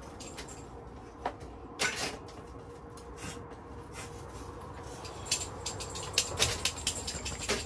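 Clicks and knocks of a metal folding camp table's adjustable legs being released and locked as the table is pressed down: a few separate knocks in the first couple of seconds, then a quick run of clicks near the end.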